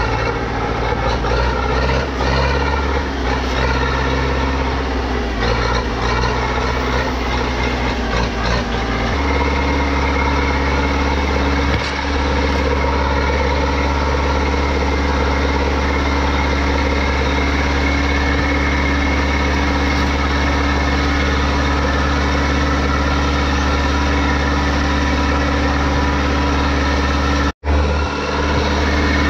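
Tractor diesel engine running steadily as the tractor works along a hop row with a mounted bine puller, tearing down hop bines. The engine note changes about nine seconds in, and the sound cuts out for a moment near the end.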